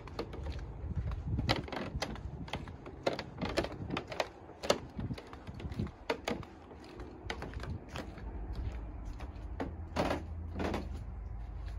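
Footsteps on wooden boardwalk decking: an irregular run of sharp clicks and knocks, about two a second, with two louder knocks near the end.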